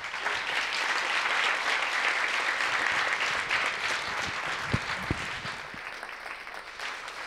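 Audience applauding, easing off over the last couple of seconds, with two thumps about five seconds in.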